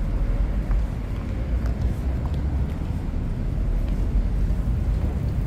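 City street ambience: a steady low rumble of road traffic, with a few faint ticks over it.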